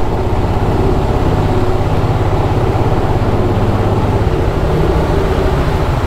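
Royal Enfield Himalayan's 411 cc single-cylinder engine running steadily at low road speed, with its rapid firing pulses and road and wind noise, inside a road tunnel.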